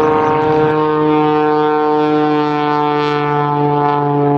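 Aerobatic plane's 400-horsepower modified Lycoming engine and propeller at full power, a loud steady drone whose pitch sinks slightly, as the plane hangs on its propeller with its wings giving no lift.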